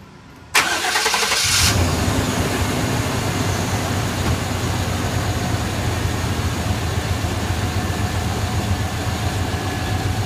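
A GM pickup's 5.7-litre 350 V8 starting about half a second in, then settling into a steady idle, driving its newly fitted serpentine accessory belt.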